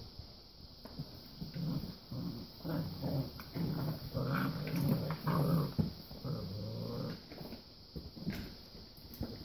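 Puppies play-growling as they wrestle, with a run of low growls through the middle and light scuffling around them.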